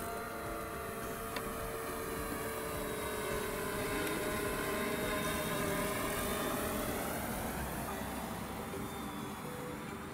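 DJI Mavic Air 2 quadcopter in flight: its propellers whine in several pitches at once that slide slowly down and back up as it circles, growing louder toward the middle and easing off near the end.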